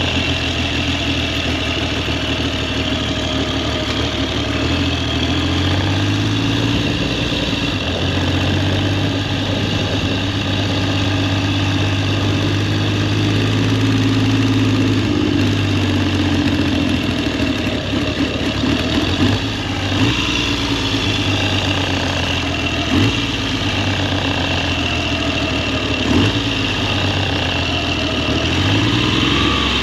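1969 Triumph Trident's three-cylinder engine running, its revs rising and falling a few times, with a few short sharp knocks in the second half. The carburettors are out of balance and their float heights low, which the mechanic later finds to be why it runs poorly.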